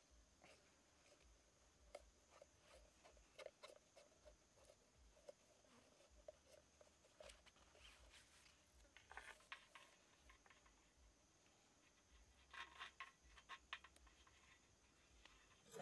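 Near silence with faint scattered clicks and rustles of a hollowed watermelon being handled, a little louder about nine seconds in and again between about twelve and fourteen seconds in, over a faint steady high hiss.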